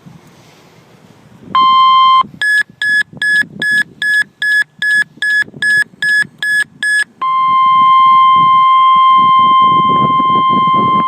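Emergency alert tones for a tornado warning. A short tone is followed by a quick run of about a dozen high beeps, about two and a half a second. About seven seconds in, the long steady weather-radio alarm tone begins.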